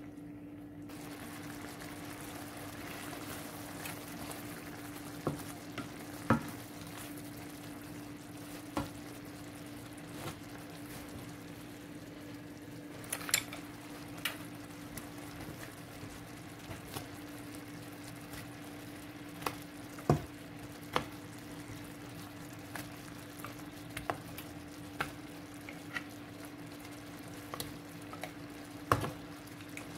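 Creamy coconut-milk sauce simmering and sizzling in a frying pan, an even hiss that starts about a second in, with scattered sharp clicks and knocks against the pan and a steady low hum underneath.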